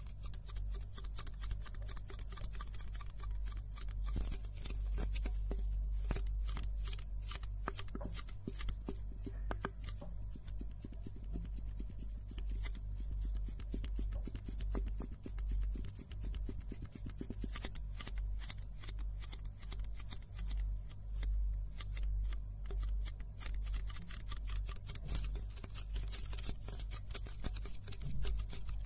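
Fingertips and nails tapping and scratching on two thin aluminium drink cans held up to the microphone: a rapid, unbroken patter of light clicks and crinkly scrapes.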